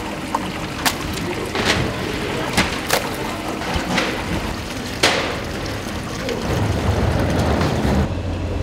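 Fish-market floor ambience: a steady background noise with about half a dozen sharp knocks and clacks in the first five seconds, from plastic crates and net bags of octopus being handled.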